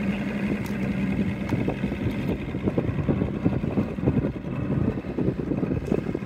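Evinrude outboard motor idling steadily, a low even hum under uneven rumbling noise.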